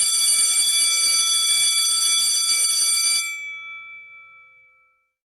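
Electric school bell ringing continuously, its clapper rattling fast against the gong. It cuts off a little over three seconds in, and the gong rings on, fading away over the next two seconds.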